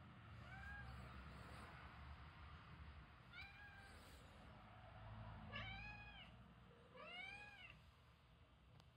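Domestic cats meowing softly, four meows that each rise and fall in pitch. The first is faint and the last two are longer.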